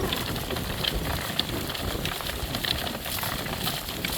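Horse-drawn cart on the move: wheels rolling over a dirt track with hoofbeats and harness rattle, making a steady crackling noise with scattered clicks.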